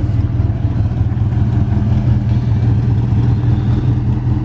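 Car engine running steadily at a constant speed, a low, even drone.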